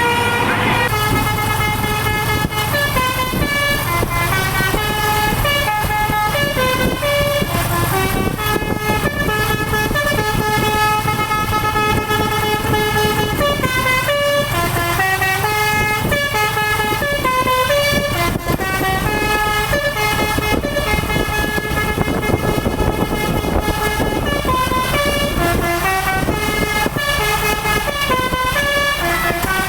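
Bus telolet basuri horn playing a tune: a long unbroken string of pitched horn notes stepping up and down, with a steady low rumble underneath.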